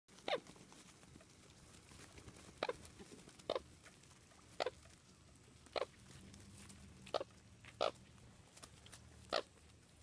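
American coots calling: eight short, sharp nasal notes scattered across the flock at intervals of roughly one to one and a half seconds.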